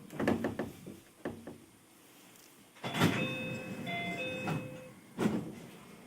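Keio 5000 series train standing at a station, heard from inside the car. A few clunks come in the first second or so. About three seconds in, the passenger doors slide open with a loud thud and rush while the door chime sounds in alternating tones. A second hard thud comes about five seconds in.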